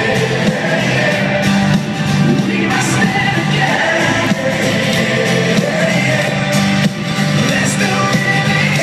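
Rock band playing live with singing over loud guitars and drums, recorded from the audience in an arena.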